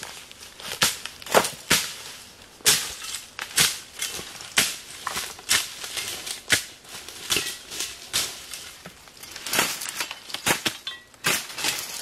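Brush being cleared with a machete: irregular sharp chops and the crunch of dry stems and leaves, about one or two strikes a second.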